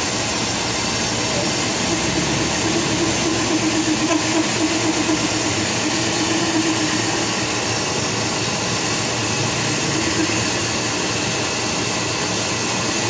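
Machine-shop equipment running steadily, a dense mechanical noise with a hum that grows stronger from about two to seven seconds in.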